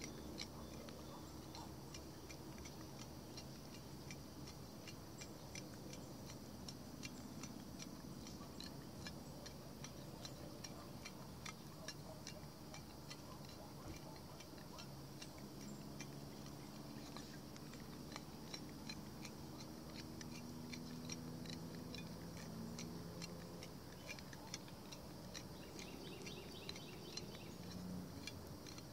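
Faint, steady ticking, a few ticks a second, over a faint low hum.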